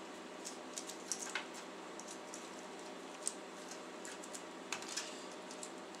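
Faint, irregular clicks and rattles of the power supply's plastic cable connectors and wires being handled and plugged in inside an open metal PC case, over a steady low hum.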